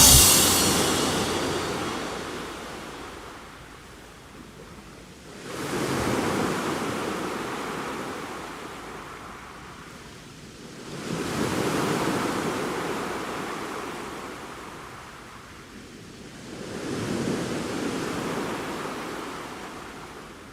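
Sea surf washing onto the shore, swelling and fading away in slow surges about every five to six seconds.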